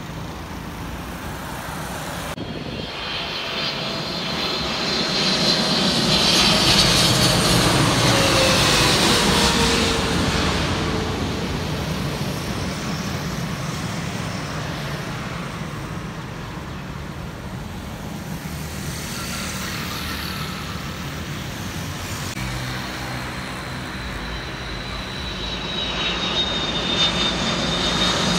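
Jet airliner engines passing close by: a loud whine and rumble swells, then falls in pitch as the aircraft goes past. Near the end another jet's high whine builds as it approaches.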